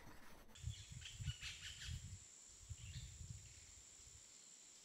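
Faint nature-style ambience: a steady high insect-like drone with scattered bird-like chirps and soft low thumps.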